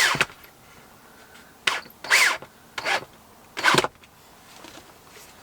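A power screwdriver or drill driving screws into soft wood in several short bursts, each whir dropping in pitch as it cuts off.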